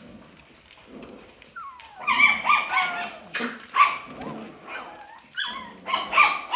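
Alaskan Klee Kai puppies yipping and whining: a run of short, high-pitched calls, some gliding in pitch, starting about a second and a half in.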